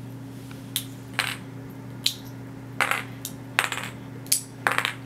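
Plastic LEGO bricks clicking and clacking as they are handled, set down on a hard tabletop and pressed together: about ten sharp, irregular clicks, several in quick pairs.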